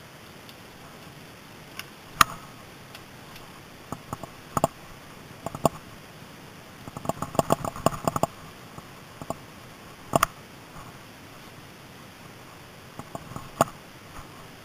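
Mountain bike riding a rough woodland trail: sharp clanks and rattles from the bike, one strong knock about two seconds in, a quick run of rattling over bumps a little past the middle, and another knock about ten seconds in, over a steady hiss of rolling and wind.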